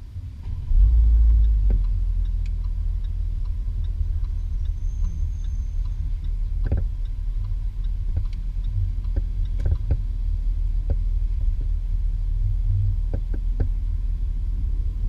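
Jaguar F-Type R's supercharged V8 heard onboard, running with a low, steady rumble at low speed. It swells louder briefly about a second in, and a few light clicks come through over the rumble.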